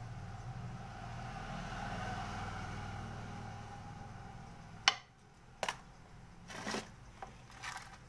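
A steady low rumble fades away over the first five seconds. Then come a few sharp clicks and short rattles of small metal tools and a phone's parts being handled on a workbench.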